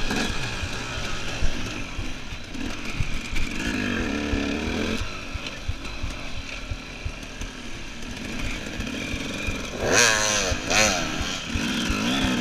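Enduro motorcycle engines running and revving, with a sharp climb in revs about ten seconds in.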